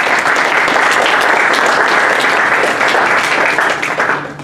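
Lecture audience applauding at the end of a talk: a steady round of many hands clapping that dies away near the end.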